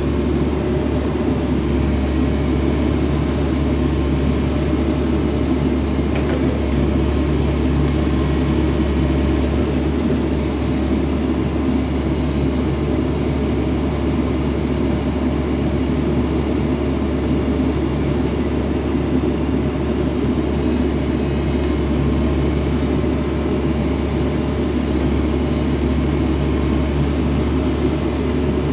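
Komatsu PW118MR-8 wheeled excavator's diesel engine running steadily while the boom and arm are worked.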